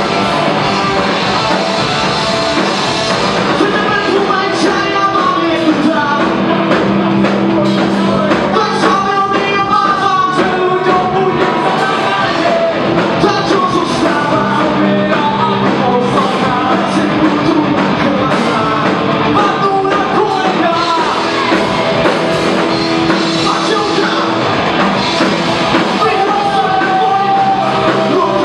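Live rock band playing loudly with electric guitars, drums and singing vocals.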